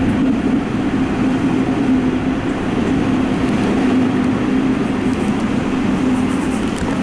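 Subway train running at speed, heard from inside the train: steady running noise with a constant low hum.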